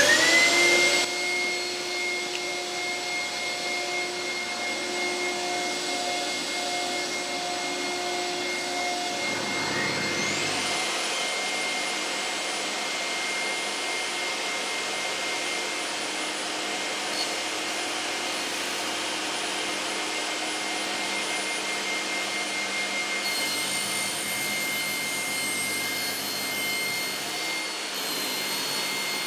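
Table saw with a crosscut blade spinning up and running steadily with a whine. About ten seconds in, a second motor spins up with a rising high whine and runs alongside it. From about three-quarters of the way through, the tone changes as the crosscut sled's plywood base is fed into the blade to cut its kerf.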